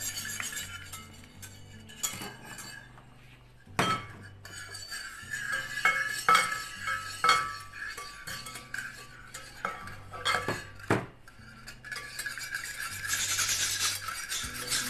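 Wire whisk beating egg and sugar in a bowl: brisk scraping of the wires, with scattered sharp clinks as the whisk knocks the bowl's side, and faster, steadier whisking near the end.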